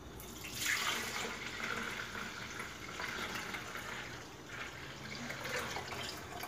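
Milk poured in a steady stream from a glass pitcher into a plastic blender jar, splashing as the jar fills. The pour starts about half a second in.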